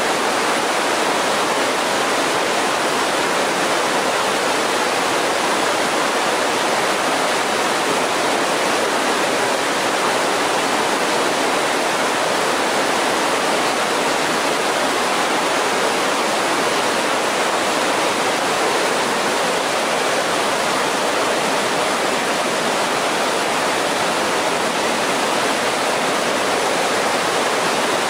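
Creek rapids rushing steadily over boulders: a constant rush of white water with no breaks.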